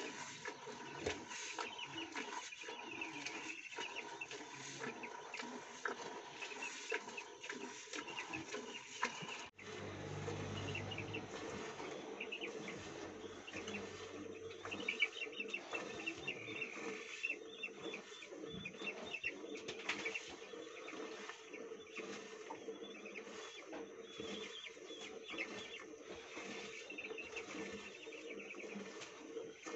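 Cow being hand-milked: thin jets of milk squirting in a quick, uneven rhythm into an aluminium bucket. Birds chirp and chickens call in the background.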